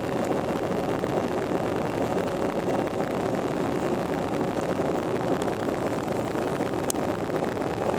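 Airplane engine and airflow noise during take-off, a steady even drone with no change in pitch or level.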